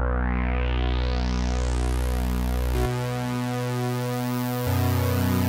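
TAL-NoiseMaker software synthesizer holding a sustained chord through its 24 dB low-pass filter as the filter is opened, the sound growing steadily brighter over the first two and a half seconds. The chord moves to new notes about three seconds in, and again about a second and a half later.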